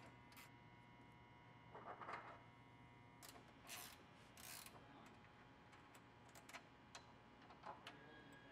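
Faint scattered metal clicks and short scrapes of a 13 mm wrench and hex key working a bolt loose.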